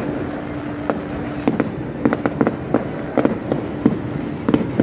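Fireworks going off: an irregular run of sharp cracks and bangs, several a second, as shells burst overhead.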